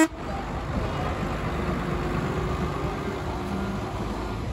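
Tractor diesel engine running steadily as the tractor drives slowly past close by, fading a little near the end.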